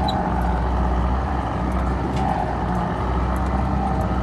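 A 4x4's engine running steadily at low speed over a bush track, heard from inside the cabin, with a few faint clicks.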